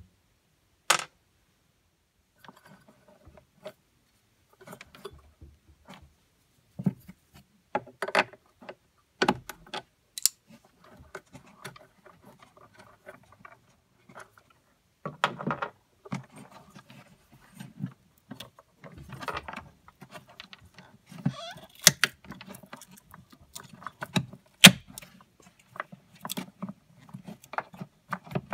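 Irregular clicks, knocks and rustles of hands handling batteries, wiring and connectors inside an Anchor Liberty portable PA speaker's plastic cabinet, with a few sharper knocks in the second half.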